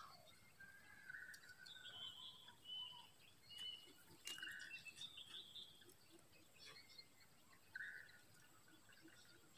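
Faint chirps and short calls of small birds, scattered and overlapping at a couple of different pitches, with a few light clicks.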